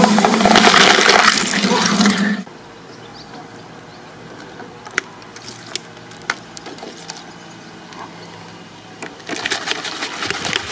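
Twin-shaft shredder crushing a full aluminium soda can: a loud crunch and spraying hiss of fizzing cola over the motor's steady hum, stopping about two and a half seconds in. Then it is much quieter, with a few sharp clicks, and loud noise starts again about nine seconds in.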